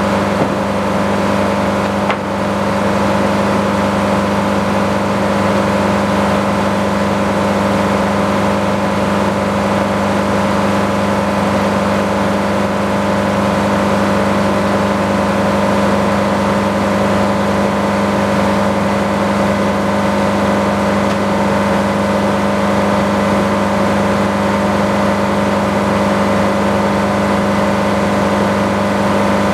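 Sawmill running steadily, its engine and saw making an unbroken drone with several fixed tones, with a short dip and click about two seconds in.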